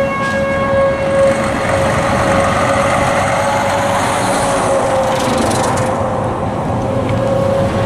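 Outdoor tornado warning siren sounding one steady wail that sags slightly in pitch about five seconds in and then comes back up, over a loud, steady rush of noise.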